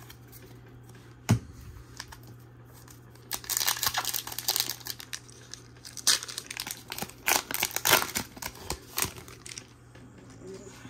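Trading card booster pack's foil wrapper crinkling and tearing as it is opened, on and off from about three seconds in to about nine seconds, after a single sharp tap about a second in.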